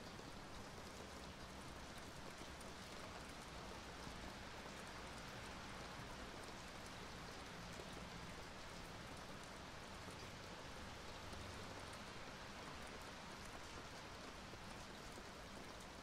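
Steady rain falling, an even, fairly quiet wash of sound with no distinct thunderclap.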